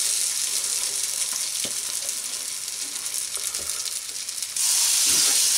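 Bubble and squeak mixture of mashed potato and cabbage frying in hot oil in a frying pan, sizzling steadily. A little over four and a half seconds in, a second spoonful lands in the pan and the sizzle suddenly gets louder, with a few faint knocks of the spatula in between.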